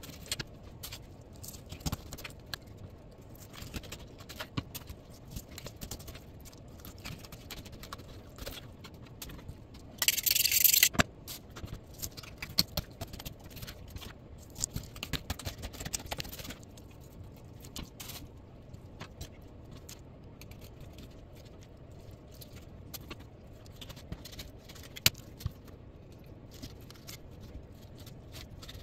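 Fillet knife cutting and scraping through panfish on a plastic cutting board, with scattered small clicks and knocks. One louder, harsher scrape lasts about a second, some ten seconds in.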